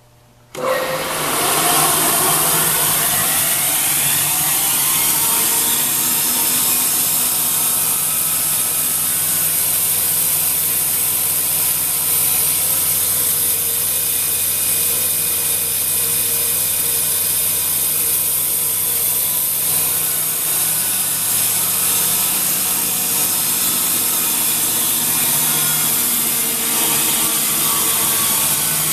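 Laguna Tools LT28 vertical bandsaw switched on about half a second in, coming up to speed within a second and then running steadily and loudly, with a strong high hiss over a low hum.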